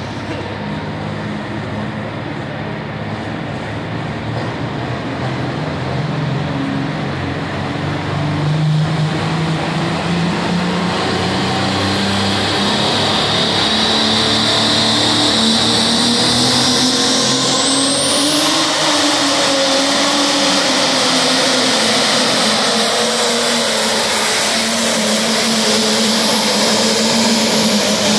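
Ford 8630 pulling tractor's turbocharged diesel engine winding up to full throttle and running hard while it drags the pulling sled down the track. The sound grows louder over the first half, and a high steady whistle comes in about two-thirds of the way through and holds.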